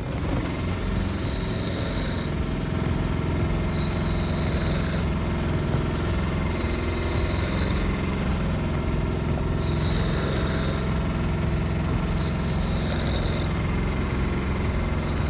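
An engine running steadily with a low rumble, with a short hiss recurring about every two to three seconds.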